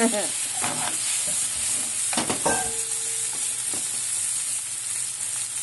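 Hot oil sizzling steadily in a pan as food fries, a constant high hiss.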